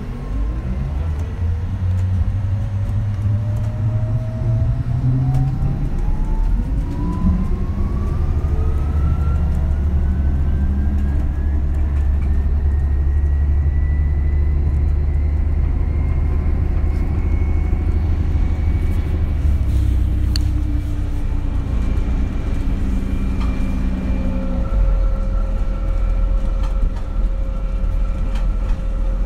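MAN Lion's City Hybrid bus pulling away: its electric drive whine rises steadily in pitch over the first dozen or so seconds and then holds, over the low rumble of the diesel engine. Near the end the bus slows, and a steady higher hum remains.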